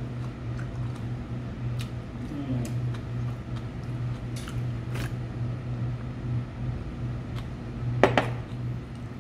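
Scattered light clinks of dishes and cutlery on a restaurant table, with one sharper clink about eight seconds in, over a steady low hum.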